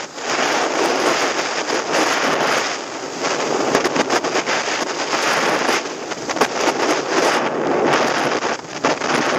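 Wind buffeting the microphone and skis scraping and crackling over groomed snow during a fast downhill run, the rush swelling and dipping briefly several times.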